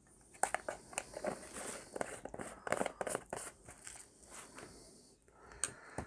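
Quiet handling noises on a modelling bench: a run of irregular crinkling, crunching clicks for about three seconds from half a second in, as the plastic tub of loose model coal and other small items are picked up and moved, then quieter.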